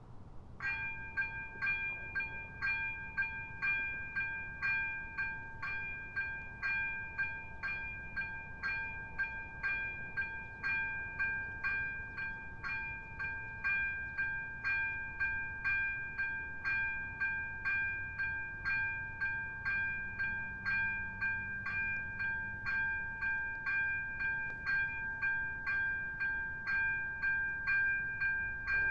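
Electronic ZV-02 bell of an AŽD 97 level-crossing warning system starting about half a second in and ringing steadily, a chime-like stroke repeated a little under twice a second: the crossing's warning that a train is approaching.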